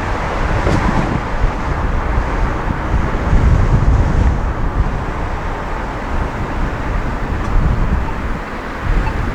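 Road and traffic noise picked up by a microphone on the roof of a moving van, with wind rumbling unevenly on the microphone.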